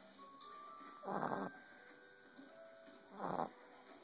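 Boston Terrier puppy snoring: two breathy snores about two seconds apart.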